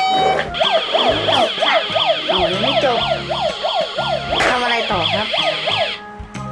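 Toy fire truck's electronic siren sounding, a fast up-and-down warble about three times a second, cutting off suddenly near the end.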